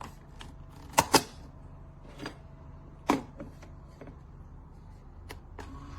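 Sharp plastic clicks and knocks from the Keurig K-Mini coffee maker being handled: a quick double click about a second in, a single click about three seconds in, and lighter taps between. Near the end a faint steady hum begins.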